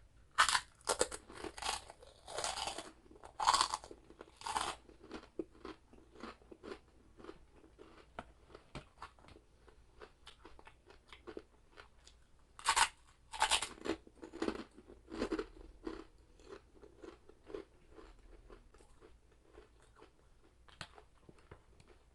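Close-up crunching and chewing of chicharabao, crispy fried carabao skin. A run of loud crunchy bites comes in the first few seconds and again around 13 seconds in, with quieter steady chewing between and after.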